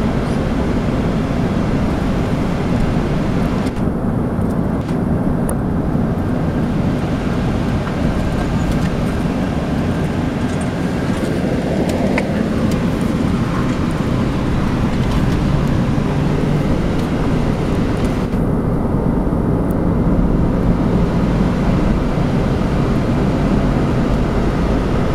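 Steady road noise of a moving car heard from inside: tyre rumble and engine hum with no breaks.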